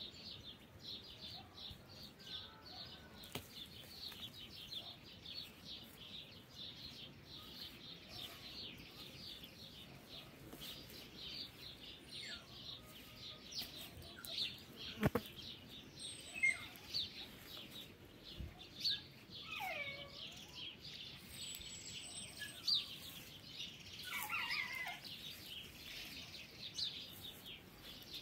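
Small birds chirping and twittering in a steady rapid chorus, with a few louder, clearer calls in the second half. A single sharp knock about halfway through.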